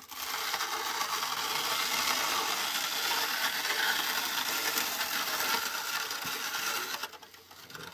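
Hand-cranked plastic grinder of a 1993 Mattel McDonald's Hamburger Snack Maker toy crushing crispy rice cereal with peanut butter and chocolate drink mix into the 'meat patty' mixture. It makes a steady crunching, rattling grind that stops about seven seconds in.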